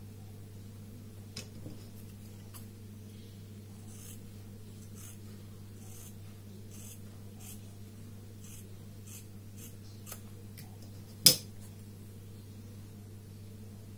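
Scissors snipping mask material in a run of short, soft cuts about two a second, with a few light clicks early on and one sharp click about eleven seconds in, over a steady low hum.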